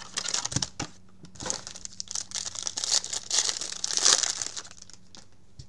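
Plastic wrapper on a trading-card box being torn open and crumpled by hand: a dense crinkling and crackling, loudest about three to four seconds in, dying away near the end.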